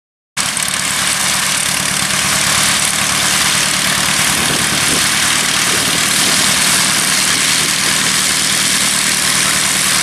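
Light aircraft's piston engine and propeller running at idle, a loud steady drone with the hiss of propeller wash, as the low-wing homebuilt begins to taxi. It starts just after a short silent gap at the very beginning.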